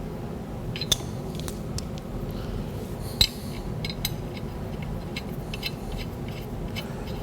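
Scattered light metallic clinks and taps of tools against steel parts, the sharpest about a second in and just after three seconds, over a steady low rumble.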